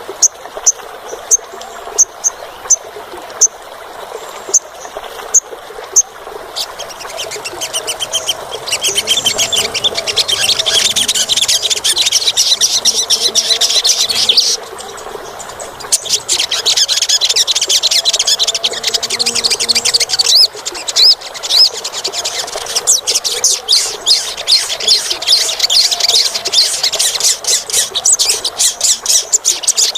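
Olive-backed sunbird calling: a run of sharp, high chips about twice a second, then fast, shrill trilling song in long bursts, with a brief break around the middle.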